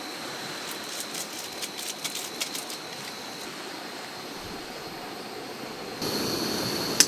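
Steady outdoor hiss with a cluster of light clicks a second or two in; the hiss turns louder at a cut about six seconds in, and a single sharp click comes near the end.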